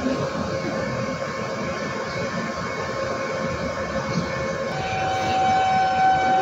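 Regional electric train at a station platform, with a steady rumbling running noise and faint hum. About five seconds in, a steady high whine starts up.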